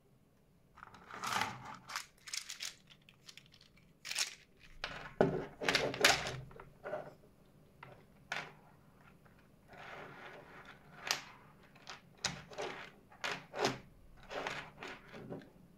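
Handling noise from a 3D-printed plastic hand: irregular clicks, knocks and rustles as it is picked up, its jointed fingers shift, and it is set down on a desk. The loudest knocks come around the middle.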